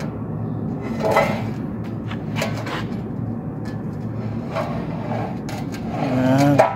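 Steady background noise with a few scattered light knocks, and short bits of a man's voice, clearest near the end.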